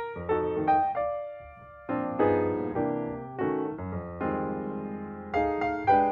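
Background piano music: a slow, gentle melody of struck notes and chords that ring and fade, with a brief quieter lull about a second in.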